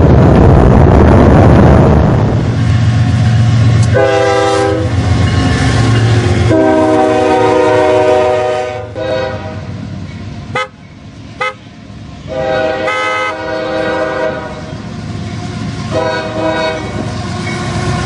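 Diesel freight locomotives: first a loud close pass of engine and wheel noise, then a series of multi-chime air horn blasts from approaching trains, the longest about two and a half seconds. Two sharp clicks come near the middle.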